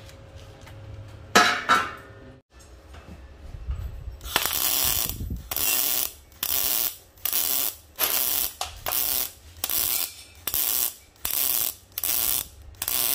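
Proteck 250 gas-shielded MIG welder's arc crackling as it stitch-welds square steel tube: one longer burst about four seconds in, then short, evenly spaced bursts about one and a half times a second as the torch trigger is pulled and released. Two sharp knocks come about a second and a half in.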